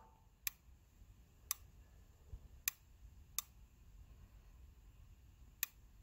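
Opened snap-action microswitch clicking as its over-centre spring snaps the contact blade between the normally closed and normally open contacts while the plunger is pushed and relaxed. About five sharp clicks come at uneven intervals.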